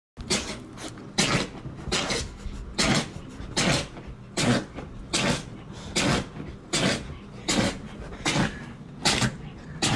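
A dachshund sneezing over and over in an uncontrollable fit: about a dozen sharp, evenly spaced sneezes, a little more than one a second.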